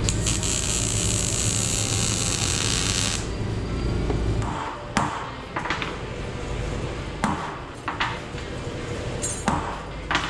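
MIG welding arc crackling and hissing for about three seconds, then a hammer striking small steel bracket plates on a steel welding table: about six sharp metallic hits with a short ring.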